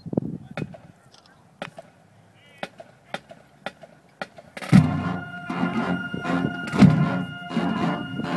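Sharp clicks counting off a steady beat, then about four and a half seconds in a high school marching band comes in loud: held brass chords over drums, with heavy accented hits.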